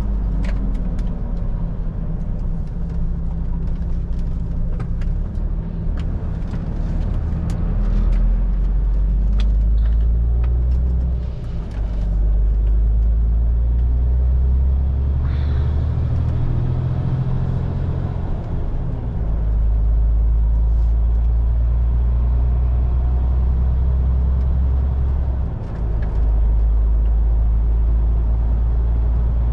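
A MAN TGX 18.440 truck under way, heard from the cab: a steady low diesel drone with road noise and small rattles. The engine sound dips briefly twice, about 11 seconds in and near 26 seconds, and there is a short hiss about 15 seconds in.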